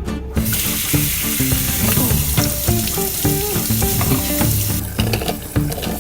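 Instrumental background music, with a loud, steady hiss over it from about half a second in until it cuts off at about five seconds.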